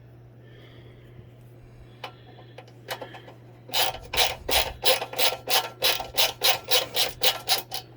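Ratchet wrench working a bolt on a metal sewing-table stand: a few scattered clicks, then a run of about fourteen quick, even strokes, three or four a second, that stops just before the end.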